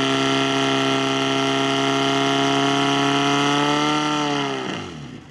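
Portable fire pump's engine running at full throttle with a steady high pitch, then throttled back near the end, its pitch falling away as it slows.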